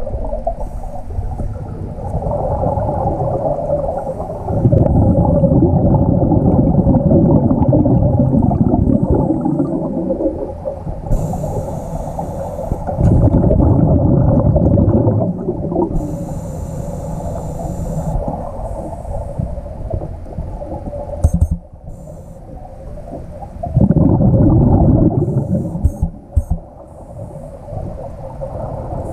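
Scuba breathing through a regulator, heard underwater. There are three long bubbling bursts of exhaled air, with shorter hissing inhalations between them, over a steady underwater hum.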